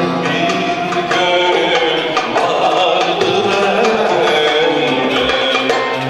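Male solo voice singing a Turkish art music (Türk sanat müziği) song with an accompanying ensemble of violins and percussion; the voice wavers in pitch over the instruments.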